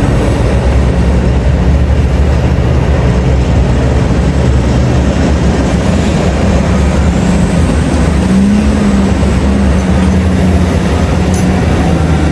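Heavy diesel engine of large mining machinery running under load, a deep steady drone, with the engine note rising briefly about eight seconds in.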